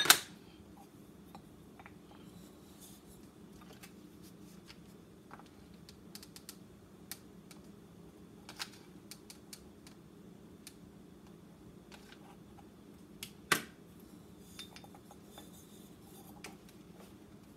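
Scattered light clicks and taps from a hot glue gun being worked and terracotta pots being handled, one sharper click just past the middle, over a faint steady hum.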